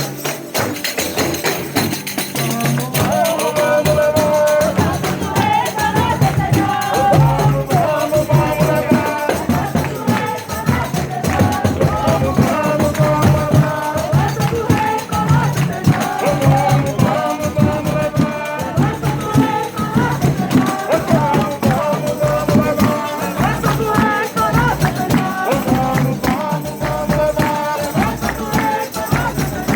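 Folia de Reis ensemble playing Brazilian folk music: a tambourine (pandeiro) jingling and striking in a steady rhythm over held melody lines and a low pulsing beat.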